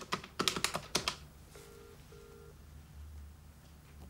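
A few sharp clicks in the first second as the telephone is dialled, then a British telephone ringing tone heard through the handset: one double ring (two short burrs) about one and a half seconds in, the line ringing out at the other end.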